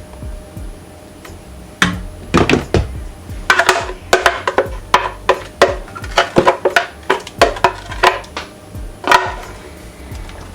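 Background music: after a quiet start, a quick irregular run of short, pitched percussive notes from about two seconds in.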